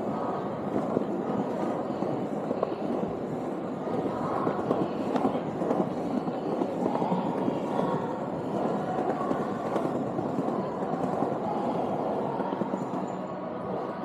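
Skateboard wheels rolling steadily over stone paving slabs, a continuous rumble with many small clicks.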